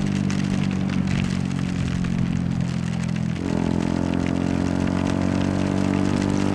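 Yamaha YZF-R125's 125 cc single-cylinder four-stroke engine running steadily under way. About three and a half seconds in, its note shifts and grows fuller.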